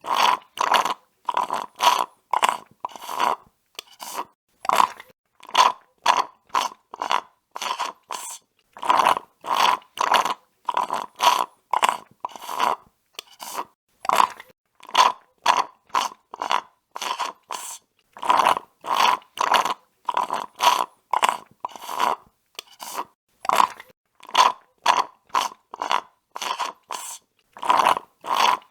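Drinking through a straw: a long run of short sucking slurps, about two a second, in groups with brief pauses between.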